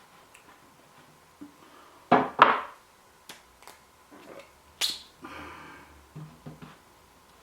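Handling noises as a 6000-grit whetstone is set into its holder: two sharp knocks about two seconds in, then a few quieter taps and a short scrape.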